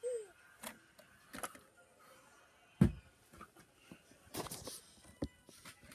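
Scattered clicks and knocks of a plastic electronic toy being handled, with one louder thump about three seconds in.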